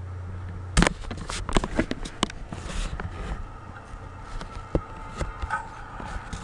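A steady low hum that cuts off under a second in, giving way to a quick, irregular run of sharp clicks and knocks, with a faint high tone in the middle.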